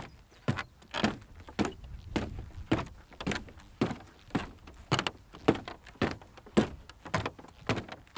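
Footsteps walking at a steady pace on a wooden pathway, about two hollow wooden steps a second.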